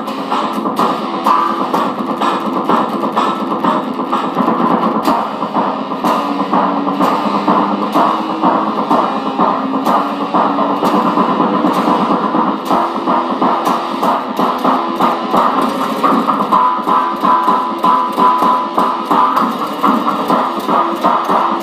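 Electric guitar, a gold-top Les Paul-style solid body, played through a small Fender amplifier, picking a continuous run of single notes with a held higher note about two-thirds of the way through.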